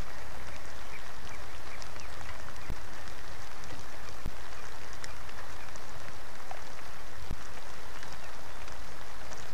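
Steady rain falling, a constant hiss with scattered sharp ticks of single drops striking close to the microphone.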